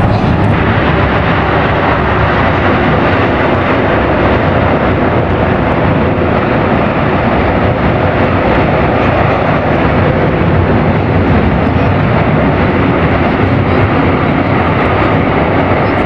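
US Air Force C-17 Globemaster III's four turbofan engines running on the runway: a loud, steady jet noise with a deep low rumble, unchanging throughout.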